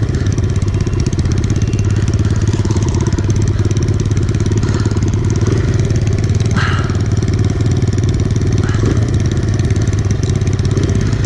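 Kawasaki KLX pit bikes running steadily around a dirt track: their small four-stroke single-cylinder engines hold an even drone with little change in pitch.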